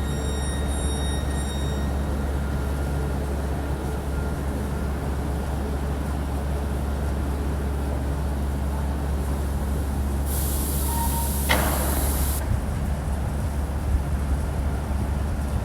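Electric train at a station platform: a steady low hum and rumble, with a high whine that fades out in the first two seconds. About ten seconds in, a sharp hiss lasts roughly two seconds.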